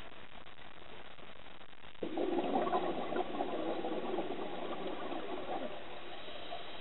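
Scuba diver breathing out through a regulator, heard underwater: a rush of exhaust bubbles starts suddenly about two seconds in and fades away over about three seconds, over a steady faint hiss.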